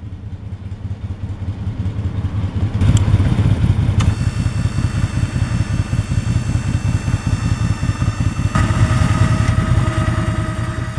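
A 2016 Odes Assailant 800cc ATV's engine runs steadily. From about four seconds in, the ATV's front electric winch whines as it reels in its cable and strap, with the engine still running underneath. The winch's whine changes pitch about eight and a half seconds in.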